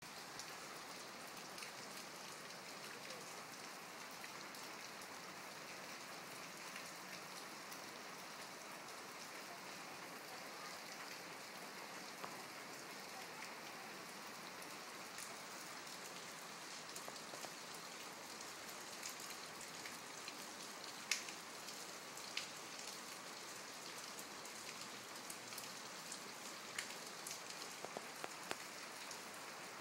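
Rain falling steadily, an even hiss with individual drops tapping close by. The drops come more often in the second half, with one sharper tap about two-thirds of the way through.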